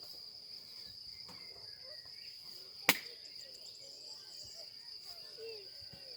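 Insects chirring steadily at a high pitch, with a single sharp click about three seconds in.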